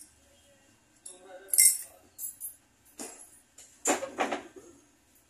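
A metal bangle clinking and rattling against the inside of a drinking glass in a few short bursts, then a knock as the glass is set down on the wooden table about four seconds in.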